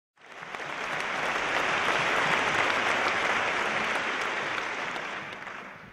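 Audience applauding: a dense patter of clapping that rises quickly from silence, holds, then dies away near the end.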